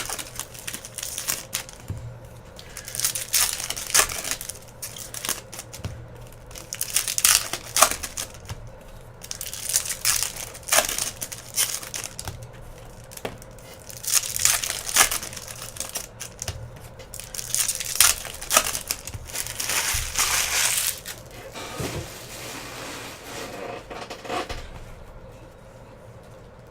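Baseball card pack wrappers being torn open and crumpled, in repeated bursts of crinkling with sharp clicks every second or two; the rustling dies away near the end.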